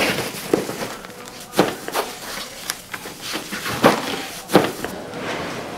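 A series of sharp knocks, about six spread over a few seconds and unevenly spaced, over a steady background hiss.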